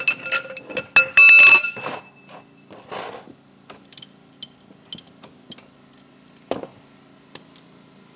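A wrench working the 17 mm transmission drain plug loose on a Kubota BX1800's rear axle housing: sharp metal clinks and clicks, with a loud metallic clatter about a second in, then scattered single clicks about twice a second that thin out.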